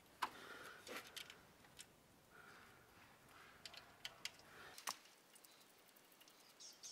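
Faint, scattered metal clicks and taps of small bolts and a socket being handled and set in place at the cam sprockets and timing chain of a BMW M52 engine, about ten light clicks in all.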